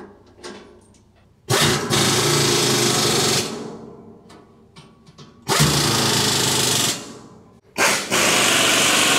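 Impact wrench running in the bolts that join the two sections of a CNC mill's bed, in three bursts of one and a half to two seconds each.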